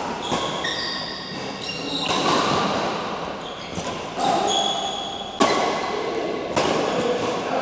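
Badminton rally: a shuttlecock struck back and forth with rackets, about six sharp hits one to two seconds apart. They ring and echo in a large metal-walled hall.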